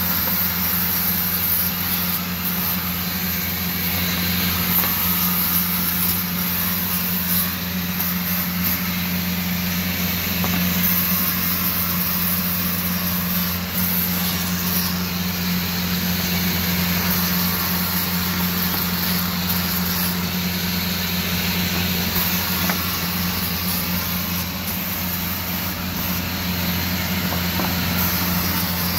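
Electric angle grinder running steadily, a constant hum with a high whine on top.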